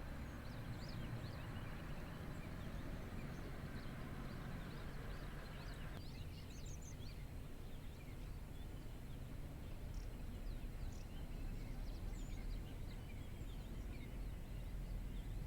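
Many small birds chirping and twittering over a steady low rumble of outdoor background noise.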